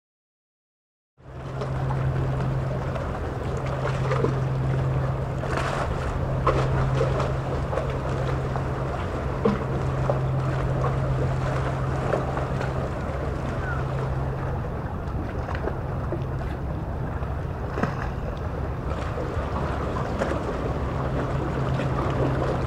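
Outdoor seaside ambience starting about a second in: wind buffeting the microphone over the wash of the sea, with a steady low hum that fades in and out and a few brief crackles.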